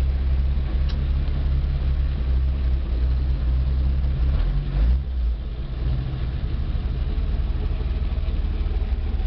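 1955 Willys pickup's engine idling steadily, a low, even running note. About halfway through its note shifts briefly before settling again.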